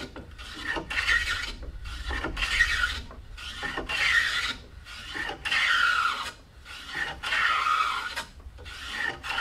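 Hand plane shaving a walnut rail, pushed in about eight strokes with short pauses between, each a rough hissing cut, to level the rail flush with its post.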